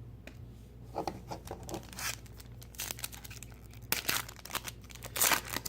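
Trading card pack wrapper being torn open and crinkled: a run of short, irregular ripping and crackling sounds, loudest about four seconds in and again about five seconds in.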